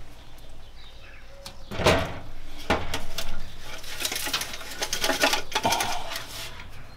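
Metal classic Mini heater unit and matrix handled on a steel workbench: a knock about two seconds in, another shortly after, then a run of clicks and scrapes as the heater box is picked up and turned.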